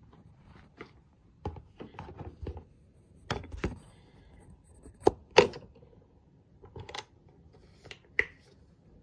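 Irregular clicks, knocks and rustling of a phone being handled against clothing, with the sharpest knocks about five seconds in and again near the end.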